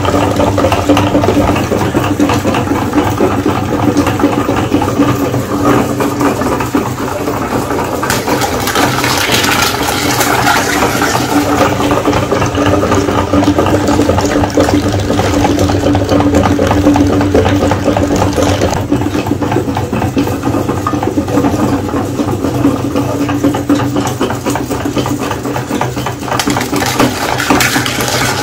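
Meat grinder running with a steady hum, its auger crushing whole eggs and forcing the wet egg mush through the hole plate with a continuous squelching grind.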